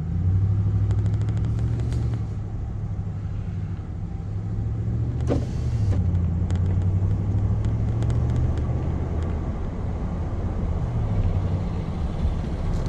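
Pickup truck's engine and road noise heard from inside the cab as it pulls away from a stop and gathers speed. The engine's low hum steps down in pitch a couple of times, about five and eight seconds in, as the transmission shifts up.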